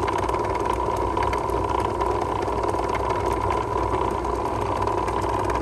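Steady drone of an electric motor running on a shop machine, an even hum with a constant whine, and faint light ticks over it.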